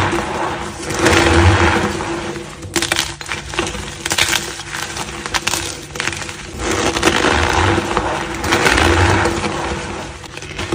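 Dyed gym chalk being crushed, crunching and crumbling in repeated swells, with a stretch of sharper crackling clicks in the middle.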